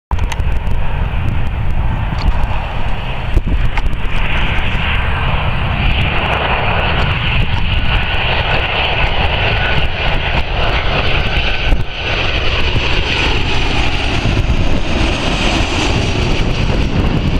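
Boeing 737-800's CFM56 jet engines on final approach for landing: a steady rumble and hiss that builds from a few seconds in and is loudest near the end as the airliner comes in low and close.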